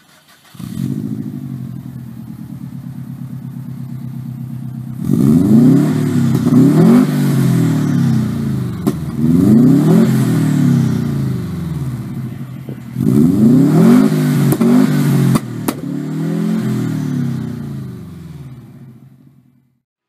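Subaru Impreza flat-four engine running through a Scoobyworld Afterburner Vortex exhaust. It flares briefly and settles to a steady idle, then is blipped up and down in several quick revs between short spells of idle, and fades away near the end.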